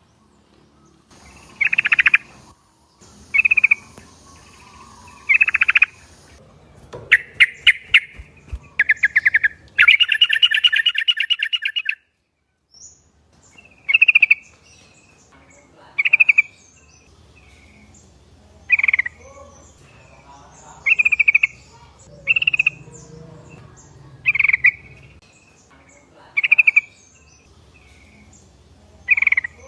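Yellow-vented bulbul (trucuk) calling: short loud phrases repeated about every two seconds, with a fast chattering run of notes and a buzzy rattle about a third of the way in.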